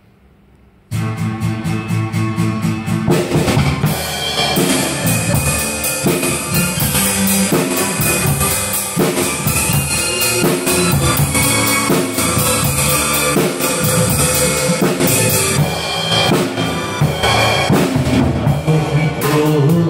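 Live drum kit, with bass drum, snare and cymbals, played along with a karaoke backing track through the instrumental intro of a kayōkyoku ballad. The music starts about a second in and runs steadily.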